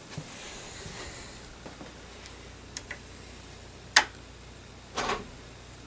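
A few faint clicks in a quiet room, then one sharp tap about four seconds in and a duller, slightly longer tap about a second later.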